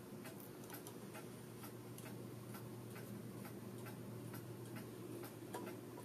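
Faint regular ticking over a low steady hum.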